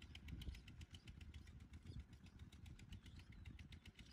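Small motorcycle engine idling faintly, a steady ticking about seven times a second over a low rumble.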